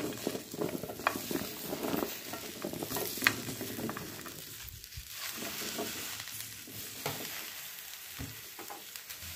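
Chopped okra pieces tumbling into a non-stick frying pan and being pushed about: a run of light clattering and clicking for the first few seconds that thins out to occasional clicks over a steady hiss.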